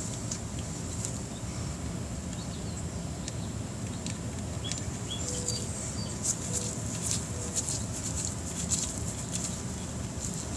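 Steady low background rumble with faint bird chirps and scattered light ticks.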